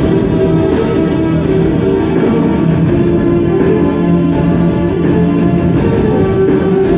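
Music led by guitar, playing steadily.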